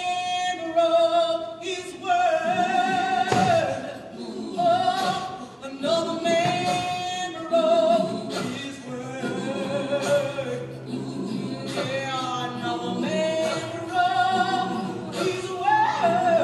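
Voices singing a ballad in harmony: a high melody line with vibrato on long held notes over lower voices.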